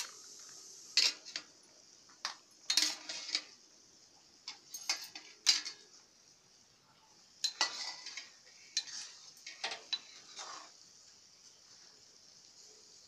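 A steel plate lid and a perforated steel spoon clinking and clanking against a steel kadai at irregular moments as the lid is lifted off and the soup is stirred, over a steady high hiss.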